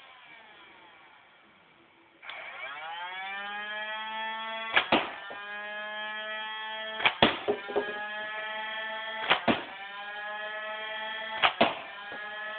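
Nerf N-Strike Elite Stryfe's battery-driven flywheel motors winding down, then revving up with a rising whine about two seconds in and holding a steady whine. Sharp clacks come in pairs about every two seconds as darts are fired through the flywheels.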